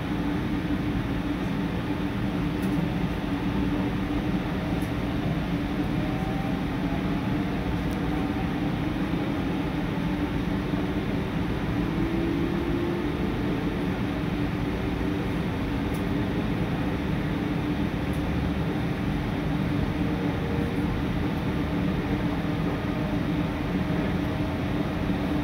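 JR commuter train running and gathering speed, heard from inside the carriage: a steady rumble with a faint whine that rises in pitch.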